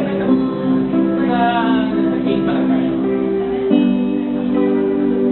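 Music: held chords that change every second or so, with a brief wavering melodic line about a second in.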